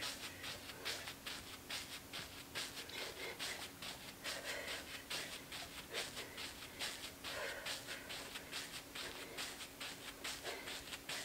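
A person doing jumping jacks: a quick, even run of soft landings and clothing scuffs, with panting breaths and a faint steady hum behind.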